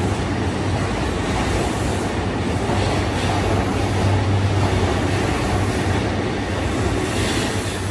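E235 series 1000 electric commuter train moving along the platform: steady running noise of wheels on rail and traction motors, with a low hum.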